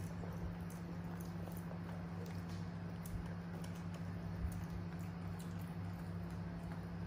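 Pet macaques picking food from woven bamboo trays and eating it: faint, scattered small clicks and rustles of fingers on the bamboo, and chewing, over a steady low hum.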